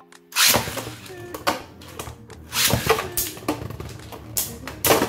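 Two Beyblade Burst tops, Sieg Xcalibur and Legend Spriggan, launched into a plastic stadium about half a second in, then spinning and clashing with a run of sharp clacks of varying loudness.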